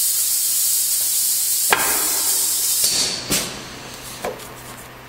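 Steady loud hiss of a cartoning machine's vacuum system running, switched on to pick up the cartons. It dies away about three seconds in. A sharp knock comes a little before that, and a few light clicks follow from cartons being handled at the feeder magazine.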